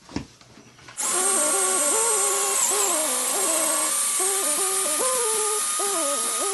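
Electric drill boring a cavity into a thick paper book with a large bit. It starts suddenly about a second in, and its motor pitch steps down and back up again and again as the bit bites into the pages and frees.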